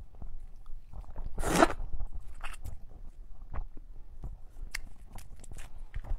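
Eating a large red prawn: a loud half-second mouth sound about a second and a half in, then a string of sharp clicks and crackles as the prawn's shell is peeled apart by gloved hands.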